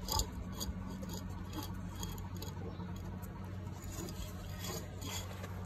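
Husky puppy licking and nosing an empty bowl, with scattered small clicks and scrapes of tongue and snout against the bowl, over a steady low hum.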